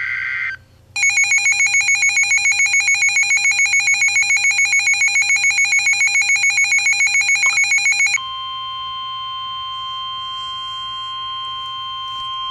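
Emergency alert signals from a weather radio: the tail of a buzzy digital SAME header burst, then a loud electronic alarm pulsing about six times a second for some seven seconds, then a steady single-pitch warning tone, the NOAA Weather Radio 1050 Hz alarm that comes before a warning message.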